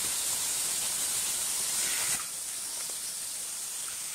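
Skewered marinated chicken frying in hot mustard oil in a frying pan, a steady sizzling hiss. It drops a little in level about two seconds in.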